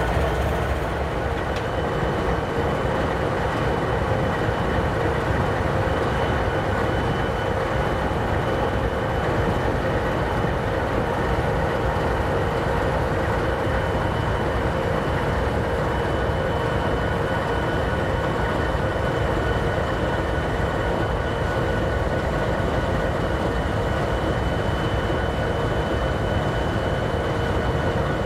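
Two diesel freight locomotives, Canadian Pacific 8207 and Kansas City Southern 4111, idling at a standstill: a steady engine drone with a steady whine on top.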